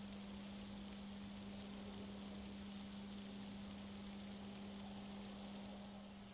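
Faint, steady fizzing of gas bubbles rising from a rusty Mosin–Nagant bayonet in an electrolysis bath, the sign of electrolytic rust removal under way, over a steady low hum.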